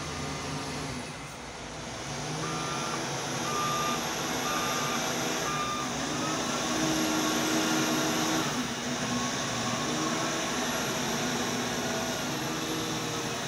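Liugong 856H wheel loader running, with its reversing alarm beeping about once a second for a few seconds. The diesel engine then revs up, rising in pitch.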